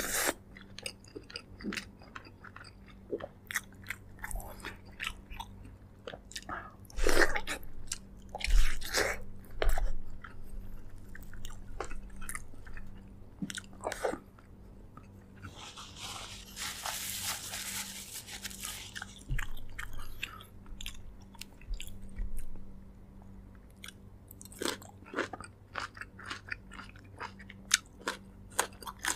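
Close-miked mukbang eating of braised pork leg: chewing and biting with many sharp wet mouth clicks, loudest about a third of the way in. About halfway through there are a couple of seconds of hissing noise.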